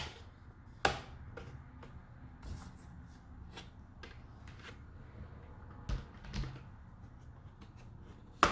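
Plastic clips of an HP PC's back cover snapping loose as the cover is pried off: sharp clicks at the start, about a second in, twice near six seconds and a loud one near the end, with faint handling noise between.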